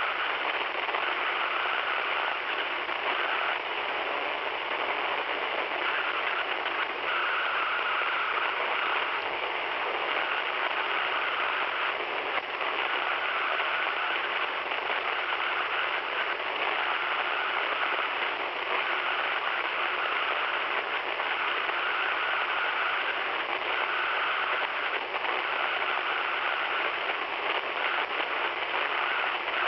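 Radio receiver hissing with static and interference noise, a steady rushing hiss with a higher band that switches on and off every second or so. The uploader cannot explain the interference and notices it rises in pitch whenever a video is playing on a nearby device.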